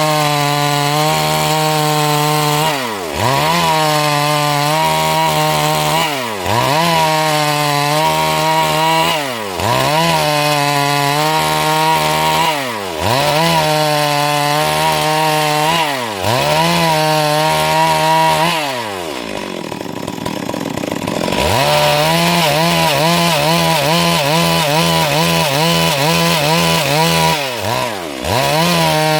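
Stihl MS 382 two-stroke chainsaw ripping along a log at full throttle. The engine pitch dips briefly and climbs back about every three seconds. About two-thirds of the way through it drops to idle for a few seconds, then revs back up into the cut.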